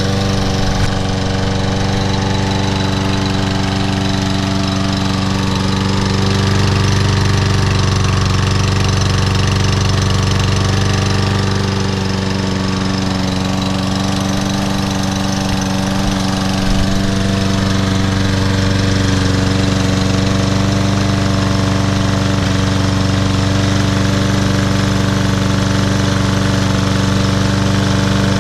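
Troy-Bilt TB110 push mower's Briggs & Stratton 550EX 140cc single-cylinder engine running steadily. The mower shakes from rope wrapped around its blade adapter.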